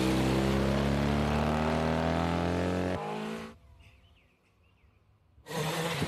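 Rally car engine held at steady high revs as the car passes close. About three seconds in it cuts away to near silence with a few faint chirps. Just before the end comes a loud rushing noise from another rally car on gravel.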